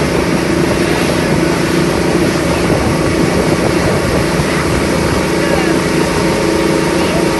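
Motorboat engine running steadily at speed while towing a water-skier, with the rush of the wake and wind.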